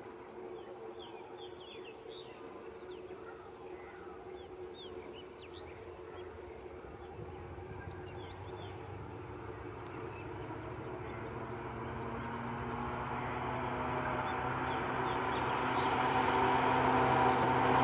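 EMD WDP4 diesel-electric locomotive's two-stroke V16 engine drawing near, its steady drone growing steadily louder through the second half. Small birds chirp over it until the engine drowns them out.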